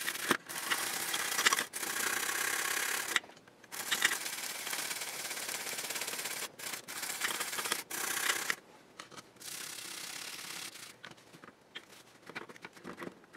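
Fine wire brush scrubbing rust and corrosion off the pads of a printed circuit board, in long scratchy runs broken by short pauses. In the last few seconds it gives way to softer rubbing and a few light taps.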